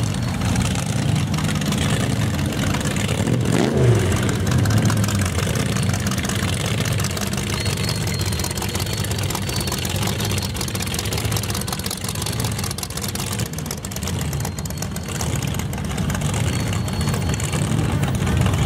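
Hot rod engines rumbling as cars drive slowly past one after another, with one short rev about four seconds in.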